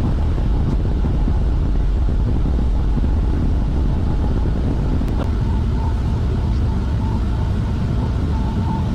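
Steady low rumble of running industrial machinery, with a faint click about five seconds in.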